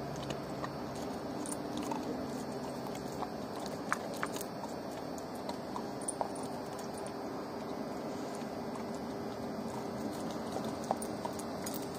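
A dog chewing and crunching on bones, with scattered sharp clicks over a steady background hiss.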